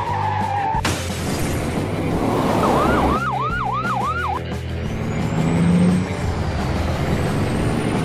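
Added car-chase sound effects: vehicle engine and road noise that comes in suddenly about a second in, with a quick siren yelp of about five rapid rising-and-falling wails in the middle, over background music.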